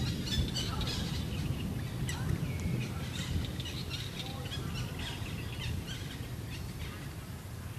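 Outdoor ambience of scattered short, high chirping calls, a few of them gliding in pitch, over a steady low rumble.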